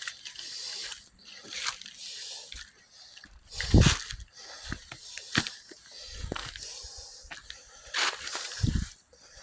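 Footsteps walking over rough, overgrown ground, a crunch or rustle at each step, roughly one a second. A few dull low thumps are mixed in.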